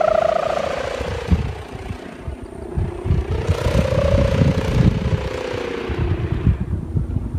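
Kite hummer (sendaren) droning in the wind: its ribbon bow sounds one tone that rises and falls in pitch, fades after about a second and swells again about three seconds in. Under it, wind buffets the microphone. The sendaren is oversized for this kite.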